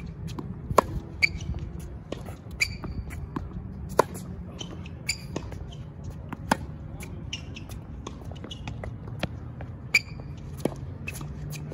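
Tennis rally on a hard court: sharp pops of the racquet striking the ball and of ball bounces, coming about every second or two, with short high squeaks of sneakers on the court surface.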